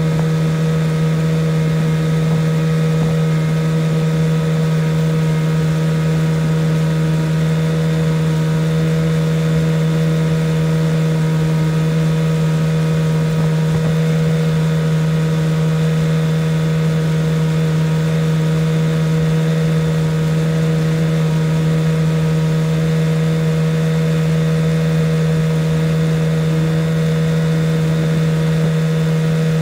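1975 Evinrude 9.9 hp two-cylinder two-stroke outboard running at steady speed under way, a constant drone that does not change in pitch.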